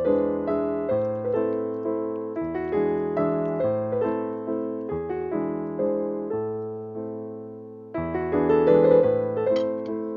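Background piano music: a gentle run of struck notes that each ring and fade, dying away for a moment about seven seconds in before the playing resumes.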